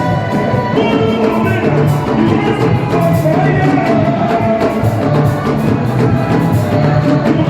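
Music: voices singing over drums and percussion.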